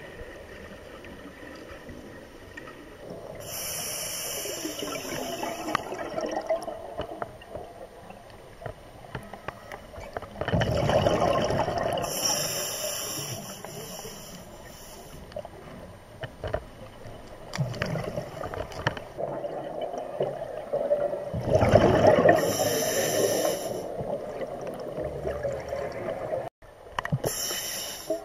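Scuba diver breathing underwater through a regulator: hissing inhalations through the demand valve and gurgling bursts of exhaled bubbles, several breaths in all, with two loud bubbling exhalations about ten seconds apart.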